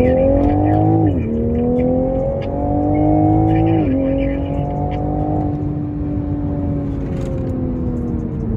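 2022 Toyota GR Supra engine and exhaust accelerating through the gears. The pitch climbs, drops sharply at an upshift about a second in, climbs again and drops at a second upshift about four seconds in, then holds nearly steady and sinks slightly.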